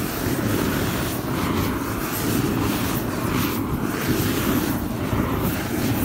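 Steady rushing of a flame torch made by lighting an aerosol spray into a jet of fire, passed over a freshly clear-coated spray-paint painting to flash-dry it.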